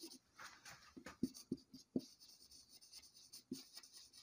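Faint marker-on-whiteboard writing: a run of short, irregular scratching strokes, thickest in the first two seconds and thinning out after.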